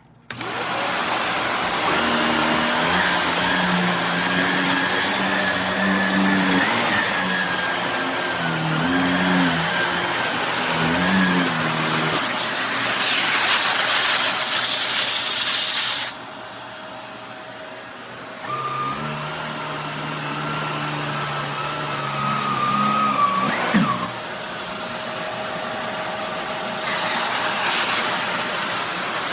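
Upright vacuum cleaner running, a steady motor whine over a rush of air. It is loud for about the first half, drops suddenly to a quieter pitch, and comes back up to full loudness near the end, with a brief click shortly before.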